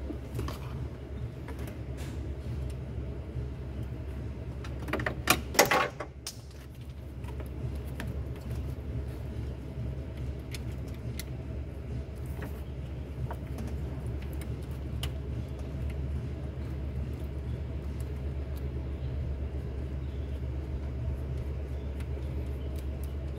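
Scattered clicks and metal clinks of hand tools and parts as a camshaft position sensor is fitted into a car engine, with a brief louder clatter about five seconds in, over a steady low hum.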